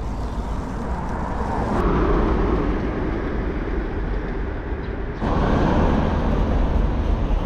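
Road traffic noise and wind noise on the microphone while cycling along a city street. The noise changes suddenly about two seconds in and again about five seconds in.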